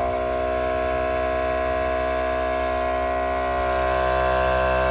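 Electric air compressor of a JNR air-ride suspension on a Harley-Davidson motorcycle running with a steady whine, a little louder near the end, pumping up the rear air suspension on a test run after the compressor repair.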